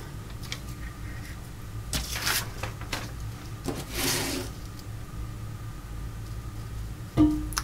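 A small sheet of paper rustling as it is lifted and turned over, in two short bursts about two seconds apart, then a single dull thump near the end, the loudest sound.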